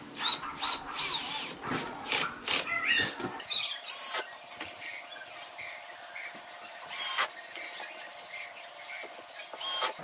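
Cordless drill-driver running in short bursts as it drives screws into a wooden speaker panel: a cluster of quick bursts in the first few seconds, then two short ones, about seven seconds in and near the end. High squealing glides mix with the bursts early on.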